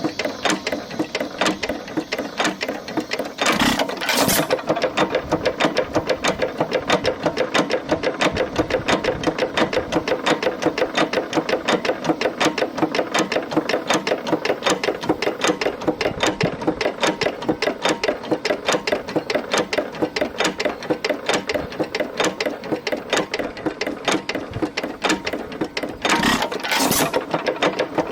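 Detroit Engine Works 4.5 hp hit-and-miss engine running: a steady gear-clanking, rod-knocking clatter at about six clicks a second. A pair of louder bangs about three and a half seconds in and again near the end are firing strokes, with the engine coasting on its flywheels between them.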